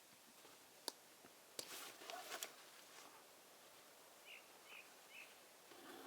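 Faint forest sounds: a sharp snap, then a brief patch of rustling and crackling, like twigs or leaf litter being handled or stepped on. A bird follows with three short chirps about half a second apart.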